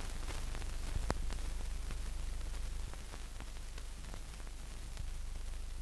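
Steady hiss and low hum with scattered clicks and crackle, the noise of a silent newsreel film transfer. No sound from the scene itself is heard.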